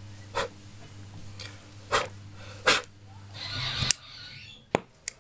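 Sharp pops from a small oxyhydrogen (HHO) flame burning at the outlet tube of a homemade electrolysis generator, about six in all, the loudest about four seconds in, just after a short rising hiss, as the flame goes out. A steady low hum runs under the first three and a half seconds.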